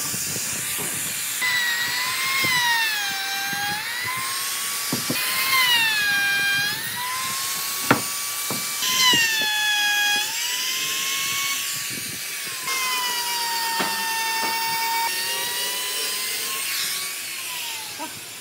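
Handheld trim router running at high speed, its whine dipping in pitch each time the bit bites into the wood and rising again as the load eases, while it cuts a slot into a wooden beam. A few sharp knocks stand out above the whine.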